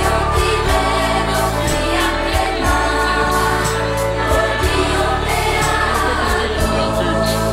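Choral music: a choir singing over instrumental accompaniment, with held bass notes and a steady beat.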